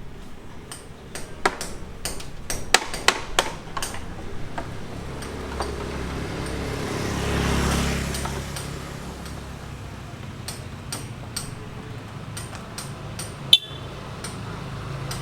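Irregular hammer blows and sharp metal knocks of building work, one loud strike near the end ringing metallically. A low rumble swells and fades midway.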